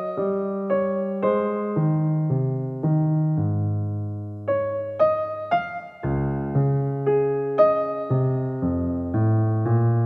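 Background piano music: a slow, gentle piece of single notes and chords, each struck and left to fade, over low bass notes.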